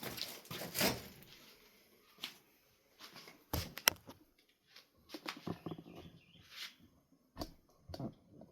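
Handling noises: scattered light clicks, taps and brief rustles of small fan parts and screws being set down and moved about.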